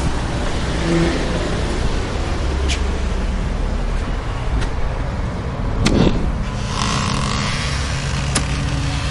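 Steady road and engine noise of a car being driven, with a few faint clicks and a brief louder sound about six seconds in.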